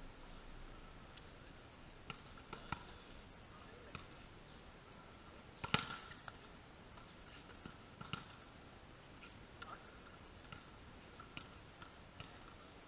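Scattered sharp slaps and knocks of a volleyball being hit and bouncing on a concrete court, the loudest about six seconds in, over a faint steady high whine.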